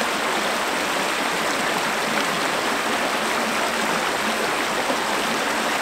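Shallow, fast-flowing woodland stream rushing over a stony bed: a steady, even rush of water.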